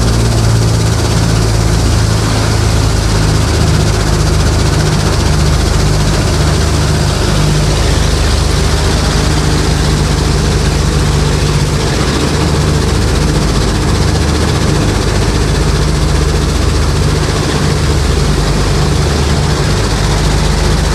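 The two Wright R-2600 radial engines of a B-25 Mitchell bomber running steadily, a loud, even drone heard from inside the aircraft's cabin.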